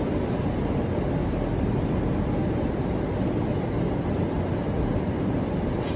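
Steady low rumbling background noise, with a brief soft click near the end.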